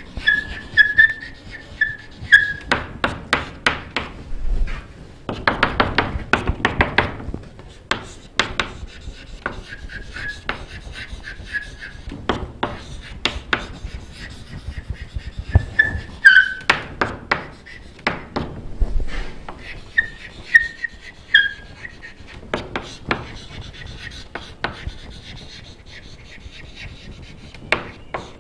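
Chalk writing on a chalkboard: quick taps and scratching strokes as letters are formed, with short high squeaks now and then.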